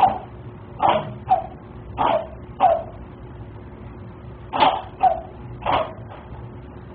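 A cat sneezing over and over: about eight short sneezes within six seconds, several in quick pairs, heard through a home security camera's microphone.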